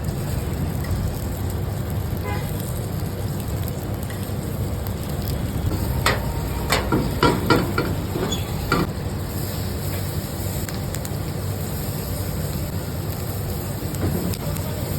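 Momos frying in a pan, over a steady low rumble, with a run of sharp knocks about six to nine seconds in, as the pan is worked.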